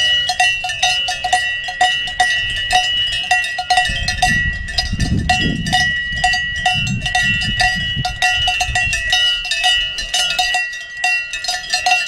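Cowbells on grazing cattle clanking irregularly, many overlapping strikes that ring on steady pitches. A low rumble rises underneath through the middle.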